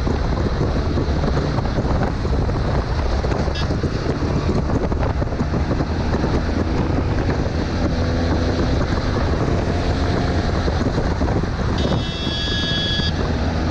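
Touring motorcycle riding at highway speed: steady wind rush over the microphone with the engine running underneath. A brief high tone sounds about twelve seconds in.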